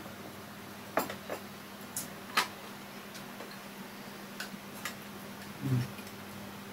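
Scattered light clicks of a spoon and chopsticks against small ceramic rice bowls, about six separate taps at uneven intervals, with a soft low thump near the end.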